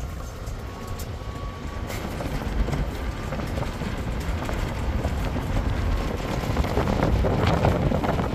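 Vehicle driving along a rough dirt track: steady engine and tyre rumble with wind buffeting the microphone, getting louder toward the end.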